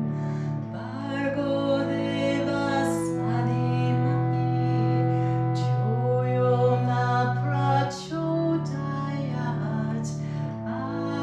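Slow, soft background music with long held notes and a singing voice over a plucked guitar-like accompaniment.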